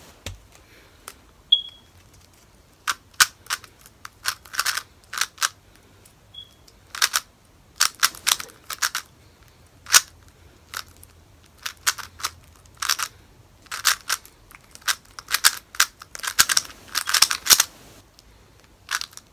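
A 3x3 speed cube being turned fast by hand: its plastic layers clack in quick, irregular flurries with short pauses between them.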